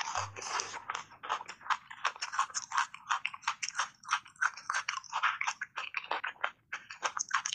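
A person biting and chewing a block of ice coated in matcha powder: rapid, crisp crunches, several a second.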